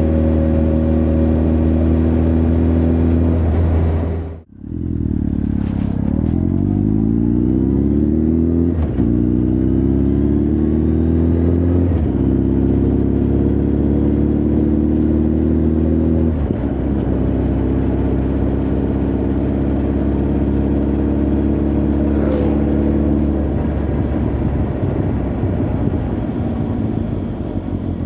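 Honda CB1300 Super Bol d'Or's inline-four engine and exhaust under way: steady at first, a brief dropout about four seconds in, then the pitch rises as the bike accelerates, with gear changes about nine and twelve seconds in, before it settles to a steady cruise.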